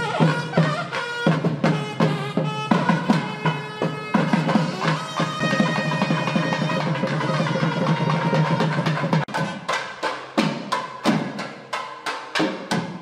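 Nadaswaram and thavil temple music: the reed pipe holds long, steady notes over thavil drumming, then drops out after about nine seconds, leaving the drum playing alone in quick strokes.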